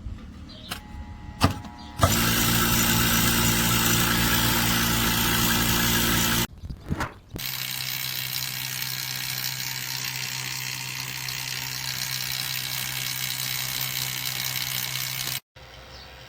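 XtremepowerUS 3 CFM 1/4 HP electric HVAC vacuum pump starting up about two seconds in and running with a loud, steady hum while it evacuates a car's A/C lines. After a break of about a second it runs on at a lower, steadier level, then cuts off suddenly near the end.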